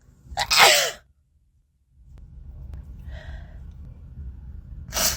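A person sneezing once, about half a second in: a sharp burst of breath with a voiced cry that falls in pitch. A brief hiss follows near the end.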